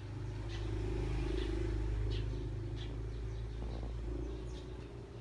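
A low rumble that builds over the first two seconds and then eases off, with short high bird chirps about once a second over it.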